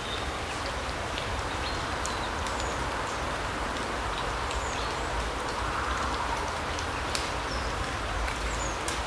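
Forest ambience: a steady, even rush, with short, thin high bird calls every couple of seconds and scattered faint ticks.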